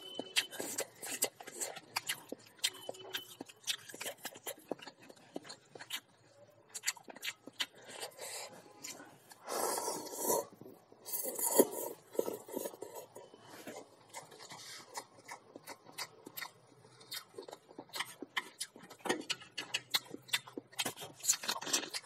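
Close-miked mukbang eating sounds: wet chewing and small clicks of chopsticks and food, with a longer slurp of instant cup noodles about ten seconds in.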